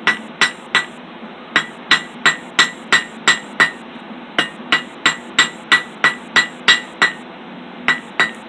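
Blacksmith's small hammer striking hot steel on an anvil, drawing out the tines of a roasting-stick fork. The blows come about three a second in runs with short pauses between, each blow with a short metallic ring.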